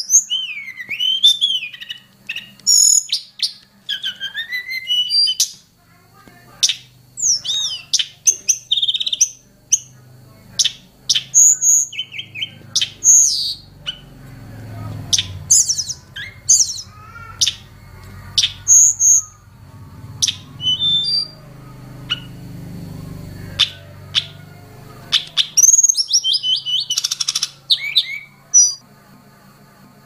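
Hill blue flycatcher (tledekan gunung) singing: a lively run of short, high chirps, twitters and sweeping whistles in quick phrases with brief gaps, densest near the end.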